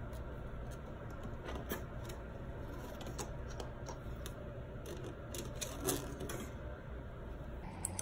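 Scattered light clicks and crinkles of a corrugated plastic drain hose and a roll of plumber's tape being handled as the tape is wound around the hose joint, with a louder crackle about six seconds in, over a steady low hum.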